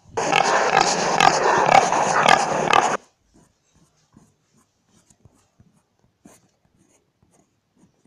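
Recorded wild boar calling: a dense, noisy run of calls lasting about three seconds that cuts off abruptly, followed by a few faint ticks.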